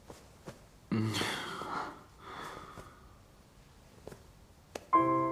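A drunk man groans and breathes out heavily in a low voice about a second in, followed by a softer breath a second later. Soft piano music comes in near the end.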